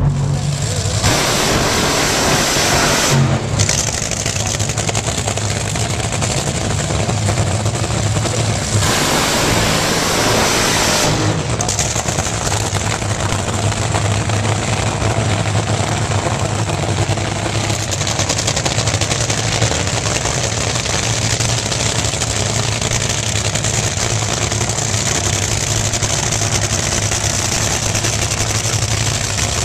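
Drag racing engines running at the strip, a loud steady rumble with hiss over it. Its character changes abruptly a few times in the first dozen seconds.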